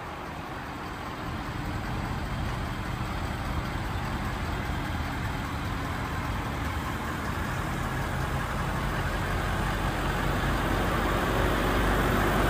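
2017 Ford F-250 Super Duty pickup engine idling steadily, growing gradually louder.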